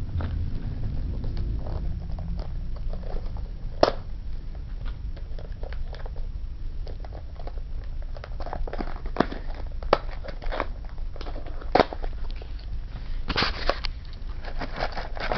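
Packaging of an Axis and Allies miniatures booster pack being opened and handled: irregular crinkling and crackling with scattered sharp clicks, over a steady low hum.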